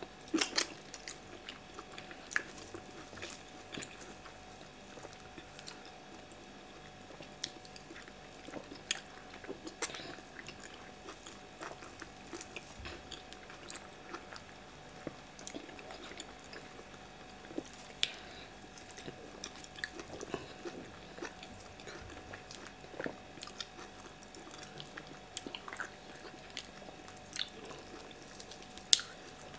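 Two people eating yam fufu and okra soup by hand and chewing, with wet mouth sounds and irregular sharp smacks and clicks.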